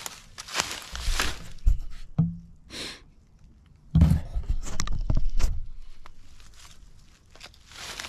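Footsteps and rustling in dry leaves and brush, with several dull thumps, the loudest about four seconds in.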